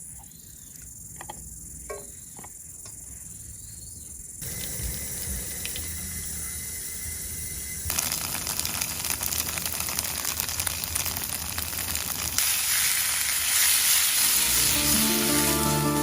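Camp cooking sounds: a steady hiss, like food sizzling in a pan or water running, that gets louder in steps about four and eight seconds in and again near the end, after a few light clicks at the start.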